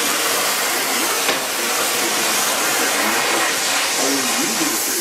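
Colmonoy powder-brazing torch flame hissing steadily.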